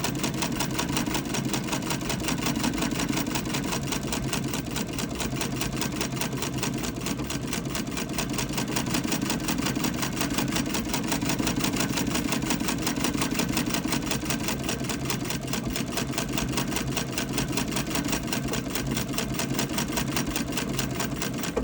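Early-1900s Davis vertical-feed treadle sewing machine stitching cotton t-shirt fabric, running at a steady pace with a fast, even clatter.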